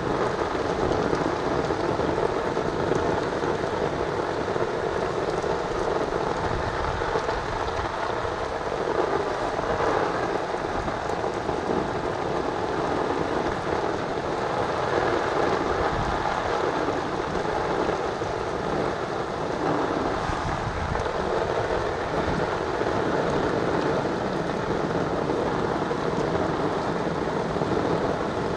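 Steady rain falling on shallow standing water in a street gutter, mixed with water running into a curb drain grate as the leaves clogging it are cleared.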